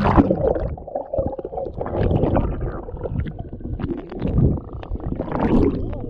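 Sea water sloshing and gurgling against a camera held at the surface as it dips in and out of the water, in uneven surges, loudest near the start and again about four and five seconds in.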